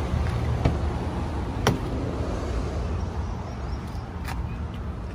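A car engine idling, a steady low hum that slowly grows fainter, with a few sharp clicks about a second in, near two seconds and past four seconds.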